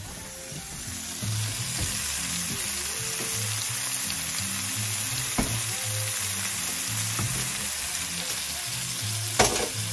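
Halved tomatoes topped with basil pesto sizzling in a hot skillet: a steady frying hiss that gets louder about a second in and holds even, with one sharp tick about halfway through.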